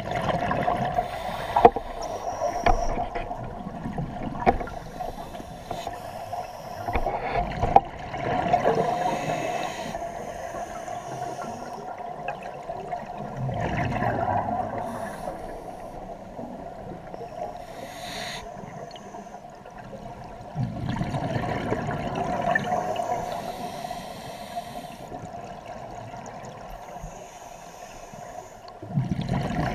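Scuba regulator breathing underwater, heard through a camera housing: a swell of bubbling exhaust about every six to seven seconds as a diver breathes out, over a steady tone. Two sharp knocks come in the first eight seconds.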